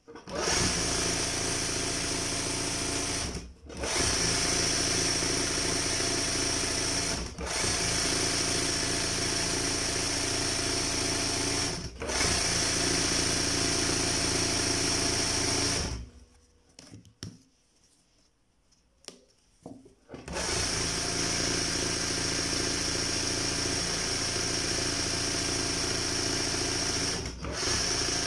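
Electric embroidery sewing machine running at speed, stitching over and over in one spot to build up a raised, padded petal filling. It stops briefly three times and pauses for about four seconds past the middle, then runs again.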